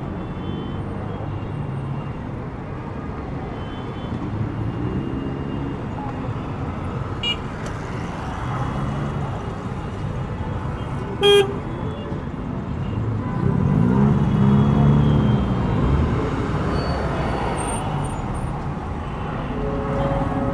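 Steady city street traffic noise, with a short, sharp car horn toot about halfway through. A vehicle's engine then passes close by, rising and falling in pitch, loudest about two-thirds of the way through.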